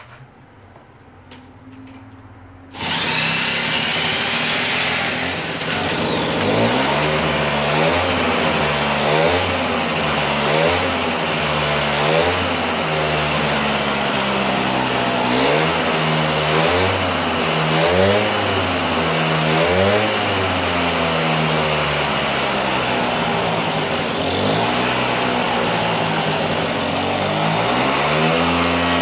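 Yamaha Passola SA50's 50cc two-stroke single-cylinder engine catching about three seconds in, then running with the throttle blipped up and down over and over, every second or two. It won't idle on its own, which the owner puts down to rubbish still in a carburettor jet.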